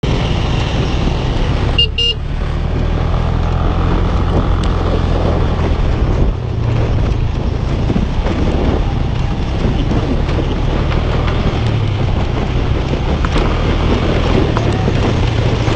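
Motorcycle engine running steadily while riding over a rough gravel road, with tyre and road noise throughout. A brief horn beep sounds about two seconds in.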